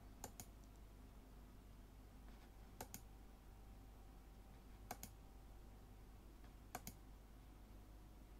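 Four faint double clicks about two seconds apart, from someone working a computer, over quiet room tone.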